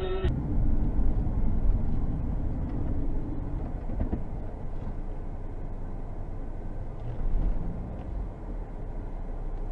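Low engine and road rumble heard from inside a car as it slows to a stop. It is heavier over the first few seconds, then settles into a steadier idle hum, with a brief swell about seven seconds in.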